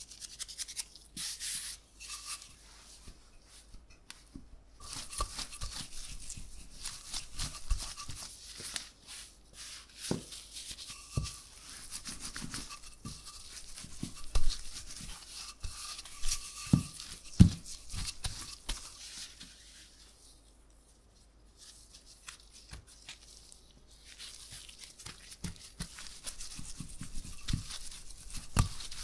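Wooden rolling pin rolling out laminated puff pastry dough on a floured countertop: a dry, scraping hiss of the pin and dough over the flour. Several knocks come when the pin is set down or pressed on the dough, with a quieter pause in between. Flour is dusted onto the counter near the start.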